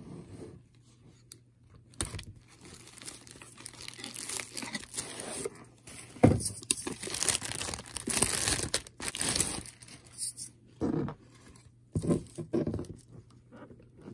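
Clear plastic packaging bag crinkling and tearing as a boxed item is unwrapped by hand, in irregular bursts that are busiest in the middle, with a sharp crackle about six seconds in.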